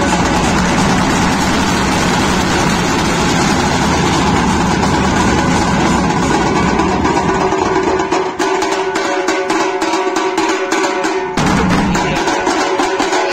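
Loud music with drumming and plucked strings over a steady low rumble. About eight seconds in the rumble falls away, leaving a quick, even drum beat.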